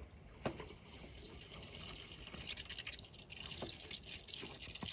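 Espro French press plunger being pressed down through brewed coffee: a click about half a second in, then a faint fizzing, bubbling hiss of coffee forced through the mesh filter, growing louder over the last few seconds.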